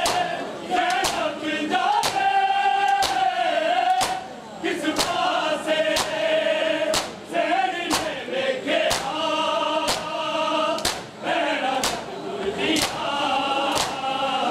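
Many men's voices chanting a noha together, over sharp rhythmic slaps of hands striking bare chests (matam) roughly once a second.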